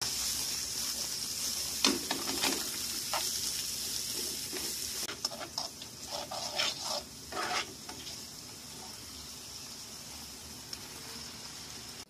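Vegetables sizzling in a frying pan, with a spatula knocking against the pan a few times. About five seconds in the sizzle drops and the spatula scrapes and knocks through ground chicken frying in the pan, then a quieter steady hiss.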